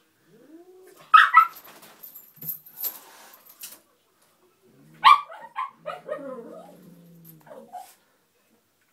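Small dog whining and yipping, eager to play with a cat: a short whine, a sharp yip about a second in, then another yip about five seconds in that runs into several seconds of whimpering.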